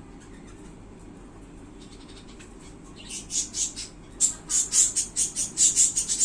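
Budgerigar chirping: a quick run of short, high calls, several a second, starting about halfway through and getting louder.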